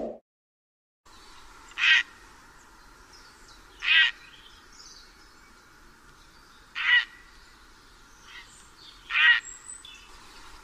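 Grey heron giving five short calls, spaced two to three seconds apart, over faint background bird chirps.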